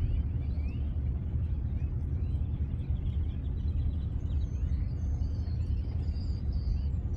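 Steady low outdoor rumble with faint, short bird chirps above it, more of them in the second half.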